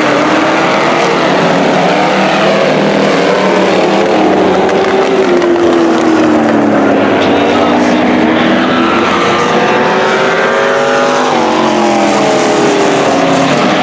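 Several demolition derby car engines running and revving at once, their pitch falling and rising as the cars slow and speed up on the track.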